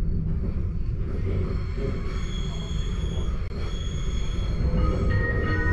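Electric multiple-unit train running, heard from inside the passenger car: a steady low rumble with high whining tones that come in about two seconds in, and a second set of lower whining tones near the end.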